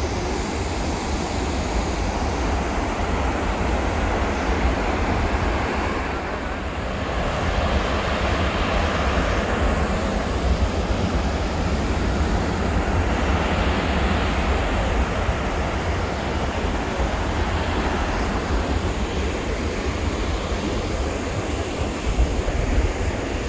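Steady rushing of a large waterfall, a continuous even noise with a heavy low rumble.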